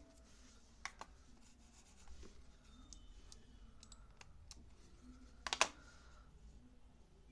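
Plastic clicks from a Rapoo X1800 wireless mouse being handled and set down: a faint click about a second in, a few small ticks, and a quick cluster of sharper clicks about five and a half seconds in.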